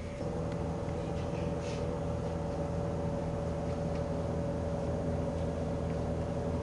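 Pepsi drink vending machine humming steadily as its refrigeration unit runs: a low drone with a faint higher tone held over it.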